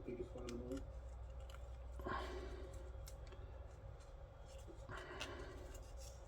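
Aluminium tubes from a TV being slid and worked off by hand: faint scrapes and clicks of metal, with a longer scrape about two seconds in and another about five seconds in, over a steady low hum.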